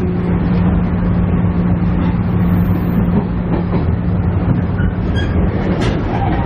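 JR East KiHa E130 diesel railcar running along the track: a continuous wheel-on-rail rumble with a steady engine hum underneath that eases about five seconds in, and a few light clicks near the end.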